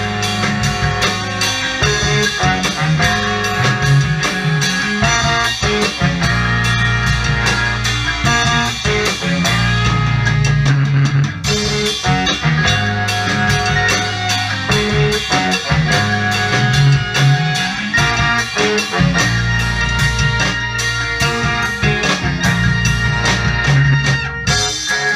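A live band playing an up-tempo groove together: drum kit, bass, electric guitar and keyboards, with a horn section. The high end drops back briefly about ten seconds in, then the full band comes back in.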